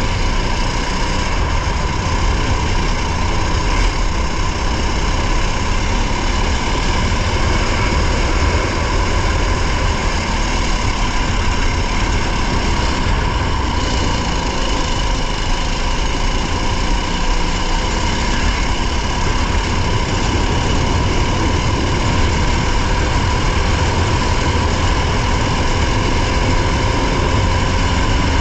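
Race car engine running hard at sustained revs, heard from on board: a loud, steady drone with small rises and falls in pitch.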